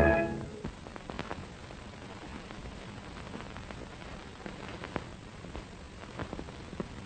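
Hiss and scattered crackling clicks of an old 1934 film soundtrack, with no music or voice; orchestral music dies away in the first half-second.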